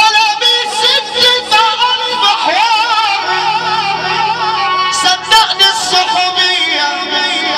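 Male singer singing an ornamented Egyptian shaabi vocal line through a microphone over amplified backing music, his voice wavering and sliding in pitch.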